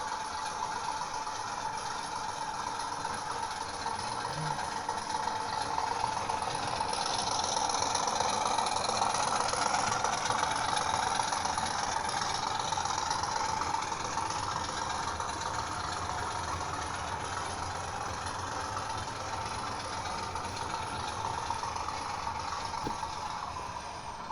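Hornby Class 50 model locomotive's HM7000 sound decoder playing a recorded Class 50 diesel engine sound through the model's small speaker. The engine note builds up from about six seconds in, peaks around ten seconds, and settles back to a steady run.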